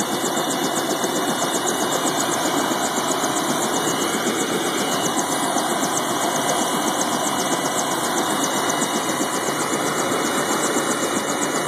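Bell 206 JetRanger helicopter's turbine engine running on the ground, a steady, even rushing noise with no change in pitch.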